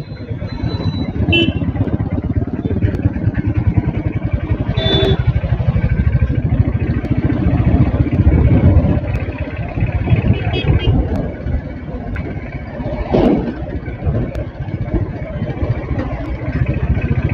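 Motorcycle engine running steadily while riding through town traffic, with wind buffeting the microphone. A few short higher sounds stand out briefly, about 5 and 13 seconds in.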